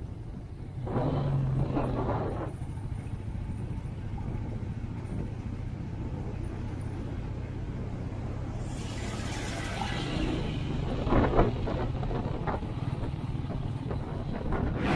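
Motorcycle engine running steadily under way, with wind and road noise. It gets louder for a moment about a second in, and there is a brief louder burst about eleven seconds in.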